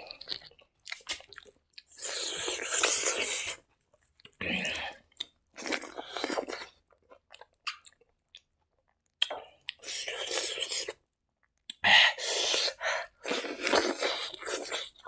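A person chewing mouthfuls of rice eaten by hand, in irregular bursts with short pauses, including a longer pause about halfway through.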